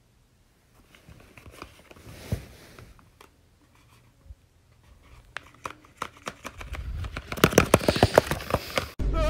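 Stiff paper of a paper dragon puppet rustling and crinkling as it is handled. Scattered clicks and crackles grow into a dense, louder run in the last couple of seconds, then cut off suddenly.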